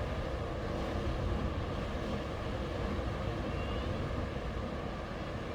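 Sea waves washing onto the shore in a steady, rumbling wash of surf, with a faint high chirp a little past halfway.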